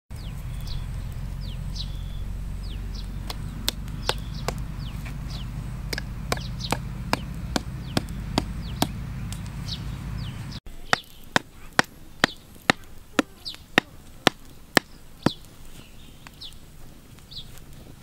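Hatchet blows on a bamboo stake, about two a second, driving it into the ground. A run of blows stops, and after a short break a second, louder run follows. Birds chirp throughout, and a low rumble underlies the first half.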